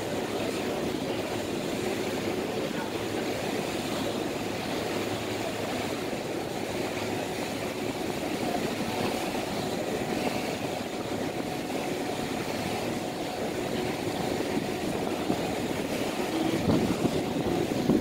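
Steady drone of a passenger ferry underway: a low engine hum with a faint steady tone, mixed with wind and water noise, growing a little louder near the end.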